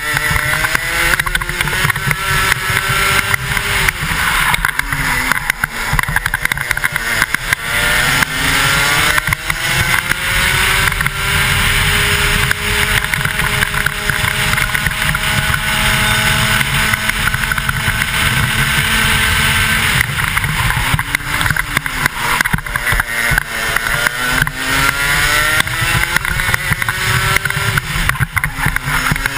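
A 125cc two-stroke kart engine at racing speed, heard from a helmet camera: its pitch climbs as the driver accelerates, drops back when he lifts for corners, and holds a long steady high note along the straight. Wind noise rushes over the microphone throughout.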